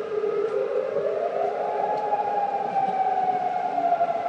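Civil defence warning siren wailing: its pitch rises over about a second, holds high, then slowly falls. It is a test of the nationwide emergency warning signal.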